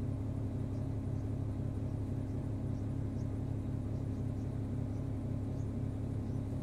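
XCMG XCA160 all-terrain crane's diesel engine idling steadily, a low even hum heard from inside the operator's cab.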